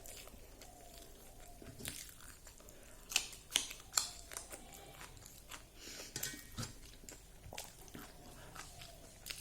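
A person chewing and biting fried dried pork with rice, with wet chewing and several crisp crunches, the loudest about three to four seconds in.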